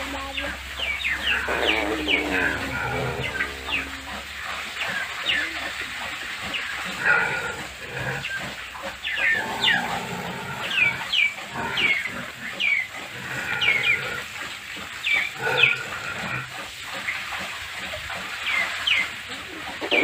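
Farmyard bird and livestock calls: many short high chirps repeating throughout, mixed with lower animal calls.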